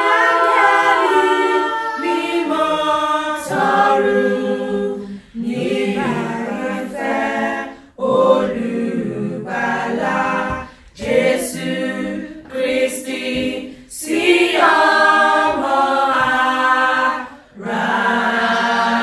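Choir singing a hymn a cappella, several voices together in phrases with short breaks between them.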